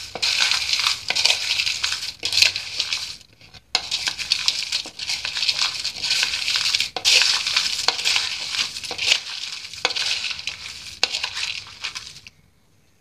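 Cornflakes being stirred with a metal spoon in a bowl with chopped vegetables and chana: a dense crackling crunch of the flakes with the spoon clicking and scraping against the bowl. It pauses briefly about three seconds in and stops near the end.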